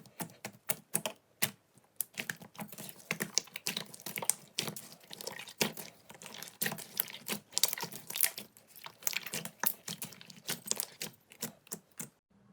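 Slime being worked by hand and giving off sharp clicking pops: a few spaced pops, then dense crackling from about two seconds in, cutting off just before the end.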